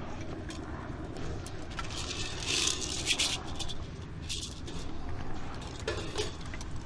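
Rattling and scraping of percussion gear being handled close to the microphone, with a louder flurry about two and a half to three seconds in and another shortly after four seconds, over a low steady rumble.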